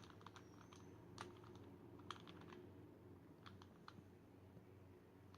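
Faint, scattered plastic clicks of a Rubik's cube being handled, small taps and knocks of the cube's pieces and fingers on plastic.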